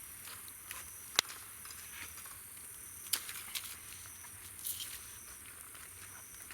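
Campfire burning, with sharp pops and crackles from the wood, the loudest about a second in and another about three seconds in, over a steady high-pitched chorus of insects.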